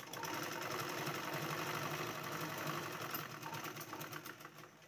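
Domestic sewing machine running at speed, its needle rattling fast and evenly as it stitches a shoulder seam in fabric, easing off near the end.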